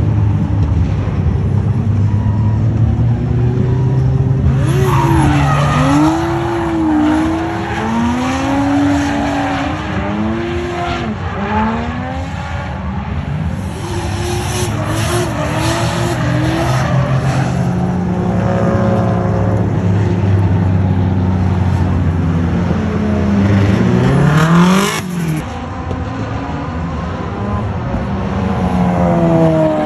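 Drift cars sliding through corners, their engines revving hard with the pitch swinging up and down over and over as the throttle is worked, over tyre screech. About 25 seconds in, one engine climbs sharply and then drops off suddenly.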